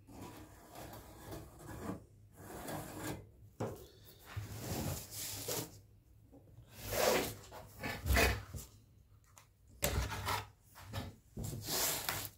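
Cardboard rubbing and scraping against the metal grid of a parabolic wifi antenna as it is pressed down and traced with a marker pen, in irregular strokes of about a second each.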